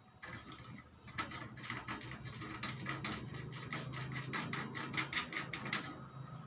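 Cordless impact wrench driving a bolt at the foot of an air-conditioner outdoor unit into its wall bracket: a motor hum under a rapid rattling hammer. It starts about a second in and stops shortly before the end.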